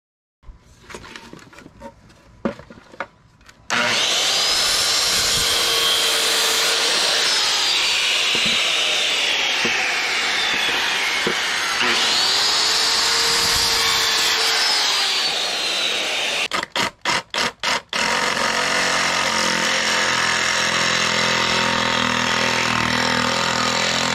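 Corded circular saw cutting through old wooden boards twice, its whine sagging and recovering as the blade bites in. Then a reciprocating saw is blipped on and off a few times and runs steadily.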